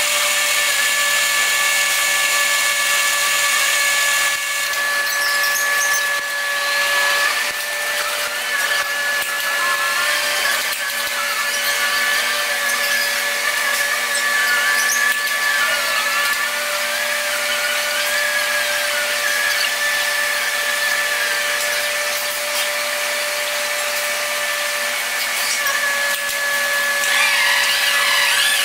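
Steady machine whine made of several held tones, with wavering higher chirps from about eight to sixteen seconds in and again near the end.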